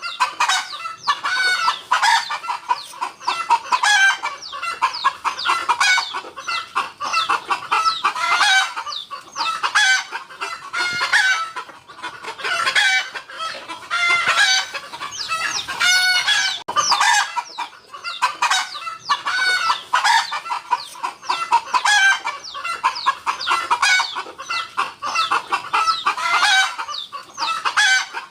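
Chickens clucking with rooster crowing, the calls overlapping and following one another without pause.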